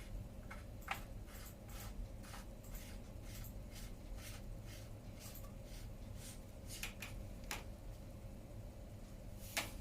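Light, irregular clicks and taps of small metal bicycle parts and tools being handled, with a sharper click about a second in and another near the end, over a low steady hum.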